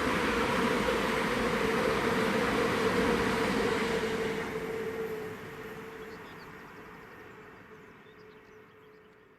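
A train passing at speed: a loud rush of wheel and air noise with a steady whining tone, dying away over the last few seconds as it recedes.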